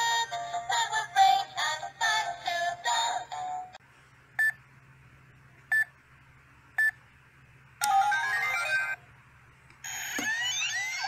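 Toy ATM coin bank's electronic sounds from its small speaker: a tinny chiptune melody stops about four seconds in, then three short single beeps a second or so apart as keypad buttons are pressed. A quick rising run of beeps follows, and another electronic jingle with gliding tones starts near the end.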